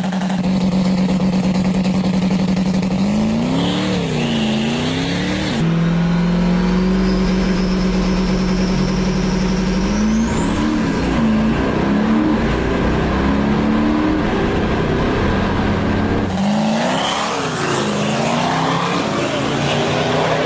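High-powered four-wheel-drive diesel truck engine: a steady note with a couple of short revs, then a full-throttle run with a high whine from the turbocharger spooling that climbs steadily in pitch and then holds. Near the end the engine is heard from beside the track as the truck pulls away.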